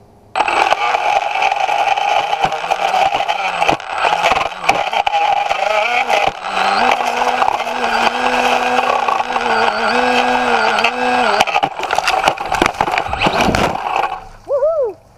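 DJI Phantom quadcopter's motors spinning up to full power while the drone is snagged in a tree, the propellers clattering against leaves and twigs as it is flown free. The motor whine shifts up and down in pitch with many sharp clicks, then cuts off suddenly about 14 seconds in.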